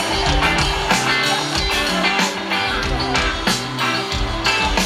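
Live rock band playing loudly through a concert PA: electric guitars and bass over a drum kit keeping a steady beat.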